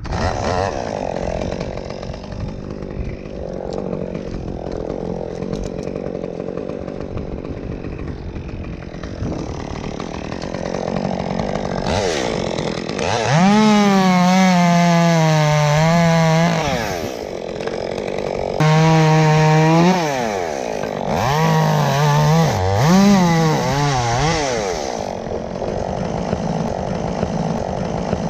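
Two-stroke chainsaw running and cutting through dead wood. It runs steadily at first, then is revved hard to high speed three times from about halfway through, its pitch sagging and recovering as it cuts.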